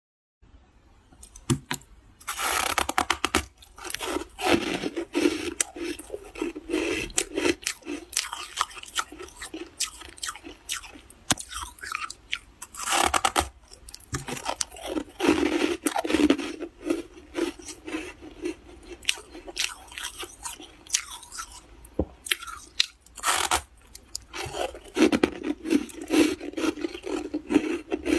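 Freezer frost being crunched and chewed close to the microphone, in dense repeated crunches, with scraping sounds among them.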